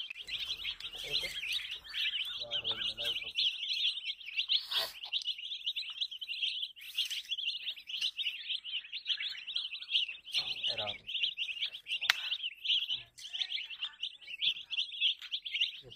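A flock of young chicken chicks peeping continuously, many rapid cheeps overlapping into a dense, high chorus.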